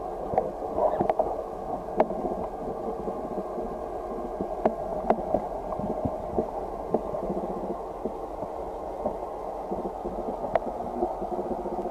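Muffled underwater ambience picked up by a submerged camera: a steady, dull water murmur with scattered sharp clicks.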